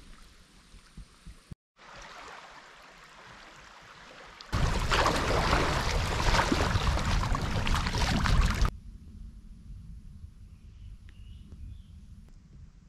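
Kayak paddling on a shallow river: the double-bladed paddle dipping and splashing, with water rushing around the hull, a loud stretch of about four seconds that starts and stops abruptly, between quieter stretches of faint moving water.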